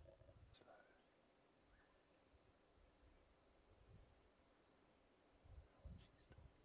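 Near silence: faint bush ambience with a steady high-pitched insect drone and faint short high chirps repeating about twice a second, and a couple of soft low thuds near the end.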